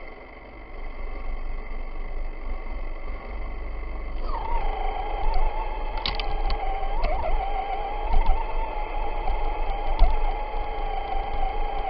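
Traxxas Stampede RC truck's electric motor whining as it drives through snow, heard from a camera mounted on the truck. The whine comes in about four seconds in, drops slightly in pitch, then holds and wavers with the throttle. Under it runs a steady low rumble, with a few sharp knocks from bumps.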